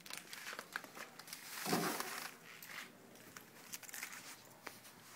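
Soft rustling with scattered light clicks, one louder rustle about two seconds in: handling noise close to the microphone.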